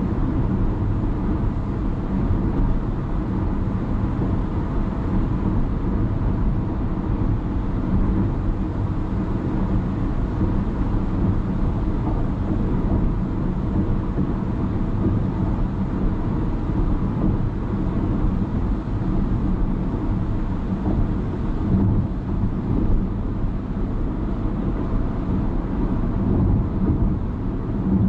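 Steady low rumble of a car driving at expressway speed: tyre, road and engine noise with a faint hum, holding even throughout.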